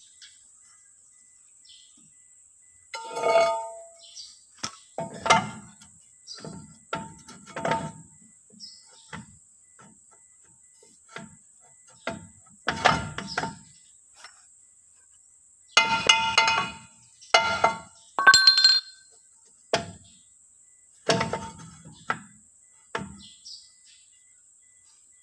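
Toyota Hilux rear brake drum being pushed and knocked onto new brake shoes: irregular metallic clanks and knocks, each ringing briefly at the same pitches, loudest in a cluster about two-thirds of the way through. The drum is a tight fit over the thick new linings.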